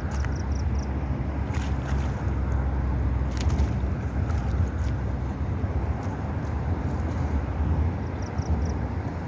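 Steady low outdoor rumble, with a few faint knocks and a light splash as a landed fish is scooped out of shallow pond water in a plastic bag. Small high chirps come briefly near the start and again near the end.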